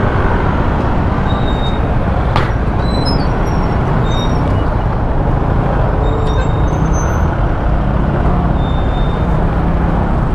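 Honda XRM 125 motard's single-cylinder four-stroke engine running steadily under way, with wind noise on the microphone. There is a sharp click about two seconds in and a few short high chirps.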